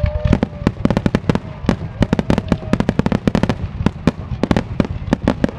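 Fireworks going off: a dense, irregular string of sharp pops and cracks, several a second.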